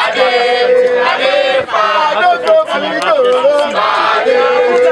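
A group of men singing a chant together, with long held notes that slide between pitches.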